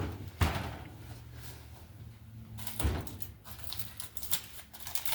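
Two knocks about two and a half seconds apart as a cooking appliance's door or drawer is opened, over a steady low hum, followed by light clicking and rustling.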